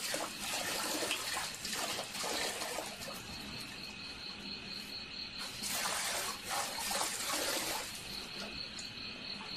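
Water running from an outdoor standpipe tap and splashing into a metal bucket, swelling and easing unevenly, over the steady pulsing chirp of crickets.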